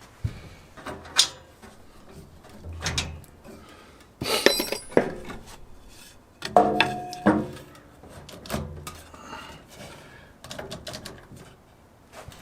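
Scattered clinks and knocks of metal tools and parts being handled while adjusting the bandsaw's belt, with two short metallic rings about four and a half and six and a half seconds in.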